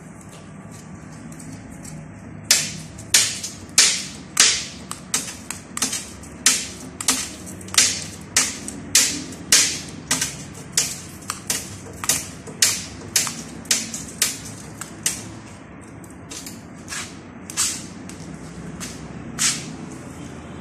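Hand glass cutter working the edge of a glass sheet: a string of sharp clicks and snaps of glass, roughly two a second and uneven in strength, from a couple of seconds in until near the end.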